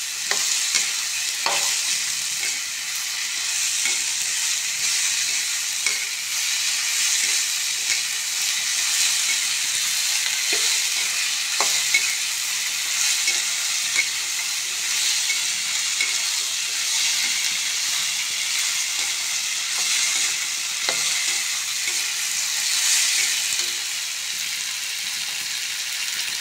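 Potatoes and ridge gourd flowers sizzling in a kadai as a metal spatula stirs them. The steady frying hiss is broken every few seconds by the spatula scraping and knocking against the pan.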